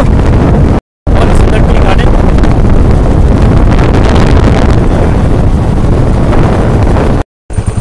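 Heavy wind buffeting on the microphone of a moving motorcycle, with the bike's engine running underneath. The sound drops out briefly about a second in and again near the end.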